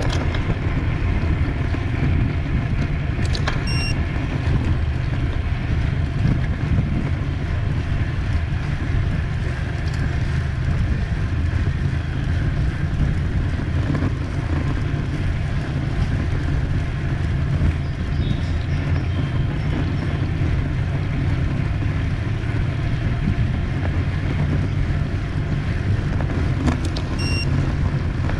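Steady wind rush and low rumble on the microphone of a racing road cyclist moving at speed. Two short high beeps sound, one about four seconds in and one near the end.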